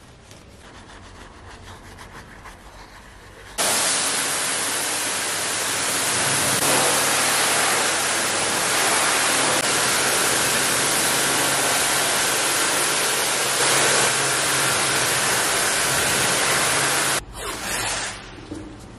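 Pressure washer jet rinsing suds off a car's paintwork: a loud, steady hiss of spraying water that starts suddenly a few seconds in and cuts off suddenly near the end. Before it, a quieter scrubbing of a detail brush in the front grille.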